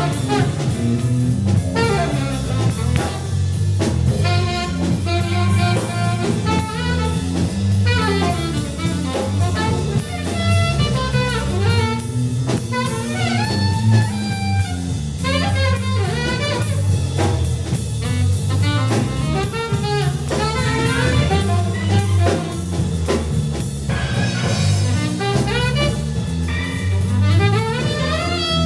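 Live jazz band playing: a lead instrument runs through quick melodic lines over bass and drum kit.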